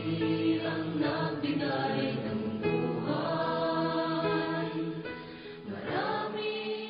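A choir singing slow, held notes, with short breaks between phrases about a second and a half in, near the middle, and near the end.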